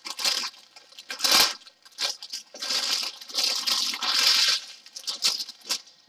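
Clear plastic bag stuffed with small packets of diamond-painting drills crinkling as it is handled, in several irregular bursts, the longest lasting about two seconds in the middle.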